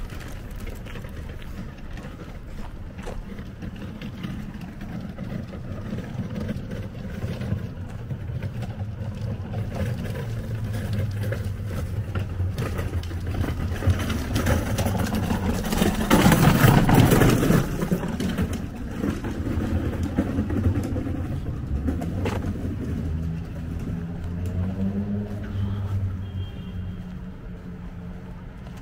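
Outdoor city background: a steady low rumble of traffic, with a louder rushing noise lasting about two seconds, some sixteen seconds in.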